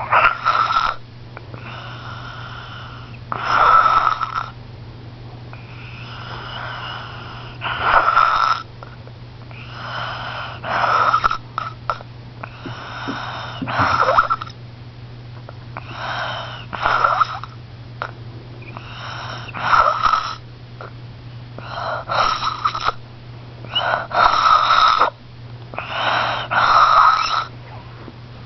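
Snoring in deep sleep: a rasping snore on each breath, about every two to three seconds, often in close pairs, over a steady low hum.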